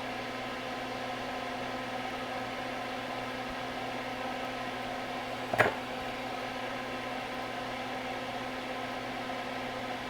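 Steady whirring hum of a small fan or electrical equipment, with one short click about halfway through.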